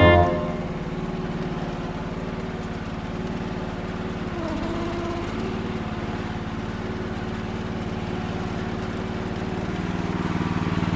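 The 14 hp Briggs & Stratton engine of a Kymron micro mini excavator running steadily, its pitch dipping briefly and recovering about four seconds in, and getting a little louder near the end.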